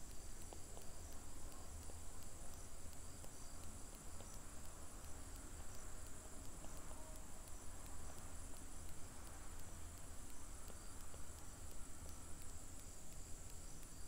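Faint, steady high-pitched chirring of crickets over a low hum.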